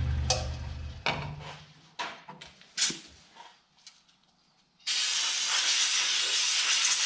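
Compressed-air blow gun blowing chips out of a milling-machine vise: a steady hiss that starts about five seconds in. Before it, the mill's motor hum cuts off about a second in, followed by a few light knocks of tools being handled.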